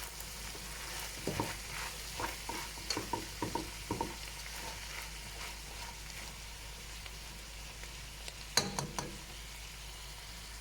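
Minced meat and peas sizzling in a pot while being stirred with a spoon. The spoon scrapes and knocks against the pot several times in the first few seconds and again near the end, over a steady frying hiss.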